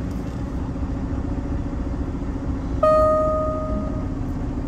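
Semi truck's diesel engine running steadily. About three seconds in, a single loud ringing tone starts sharply and fades away over about a second.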